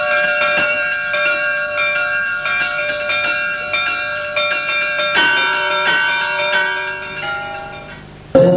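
Church bells ringing, several bells struck in quick overlapping succession, dying away near the end. A chant cuts in abruptly just before the end.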